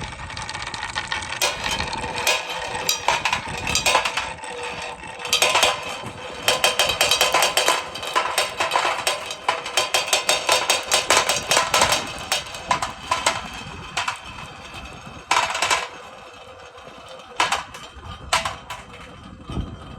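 A marble rolling down a wooden marble-run course, clattering in rapid clicks and knocks as it runs along the track. The clicking is dense and rattling through the middle, then thins to a few separate knocks near the end.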